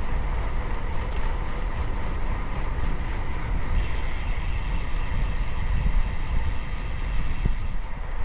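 Wind buffeting the microphone with tyre and road noise from a road bike riding at speed: a steady low rumble, with a hiss that grows brighter about four seconds in.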